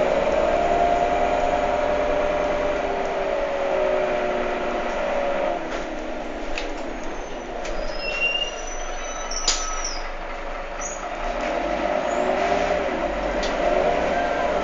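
Inside a moving Heuliez GX327 city bus: the engine and driveline drone rises and falls with the bus's speed. It eases off in the middle, with rattling clicks and a few brief squeaks from the body and fittings, then builds again near the end as the bus pulls on.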